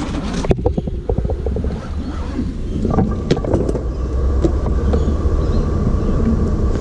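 Drain-jetter hose being tugged and handled at the drain opening: scattered knocks and scrapes, most of them in the first second, over a steady low rumble.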